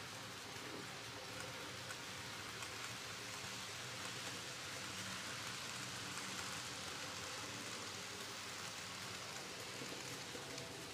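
N gauge model trains running on the layout track: a faint, even hiss of small wheels rolling on the rails. It swells a little around the middle as a red double-deck regional train passes close by.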